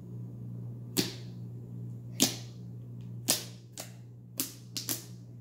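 Fingertips poking a large mound of glittery slime. Each poke gives a sharp, clicky pop, about eight in all, spaced irregularly and coming faster near the end. A low steady hum runs underneath.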